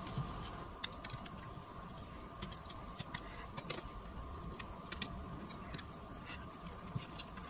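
Small irregular clicks and taps of a screwdriver and small parts being handled while screws are taken out of a cassette deck's front-panel assembly, over a faint steady hum.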